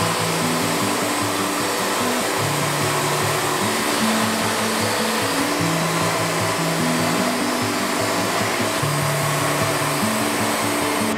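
Wood-Mizer LT40 bandsaw mill running with a steady, even rushing noise. Background music with a stepping bass line plays over it.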